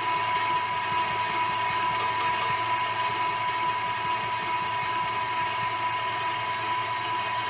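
Electric stand mixer with a wire whip attachment running steadily at low speed, a constant motor whine, whipping egg whites until they turn foamy.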